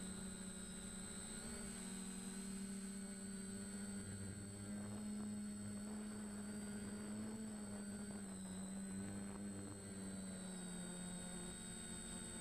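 DJI Flamewheel F450 quadcopter's motors and propellers humming steadily in flight, heard from the camera on board, the pitch drifting a little up and down, over a constant high whine.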